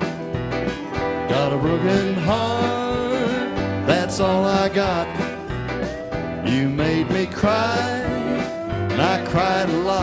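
Western swing band playing live, an instrumental passage with a fiddle carrying the melody in sliding notes over electric guitar, bass and drums.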